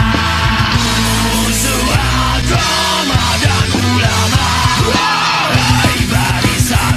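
Loud rock music with a driving drum beat.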